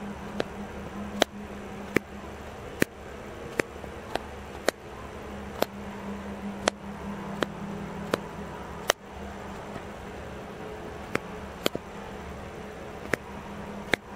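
A camera's shutter-speed and ISO command dials being turned, each wheel detent giving a sharp click: about fifteen single clicks at irregular intervals, with a pause of about two seconds partway through. A steady low hum runs underneath.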